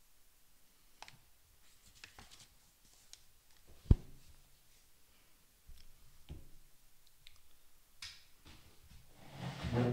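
Small handling noises at a desk: paper rustling and light clicks, with one sharp knock about four seconds in, an object set down on the wooden desktop. A louder rustling scrape comes near the end.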